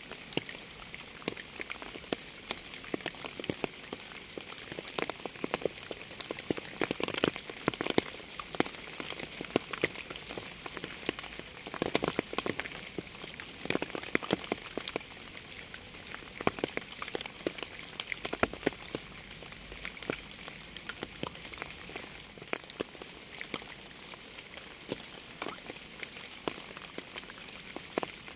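Steady rain: a constant hiss with many separate drops striking close by, a few louder than the rest.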